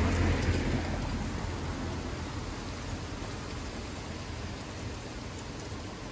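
CAT Powertech diesel generator being cranked on its starter in a start attempt, loudest in the first second or so and then settling to a steady low noise.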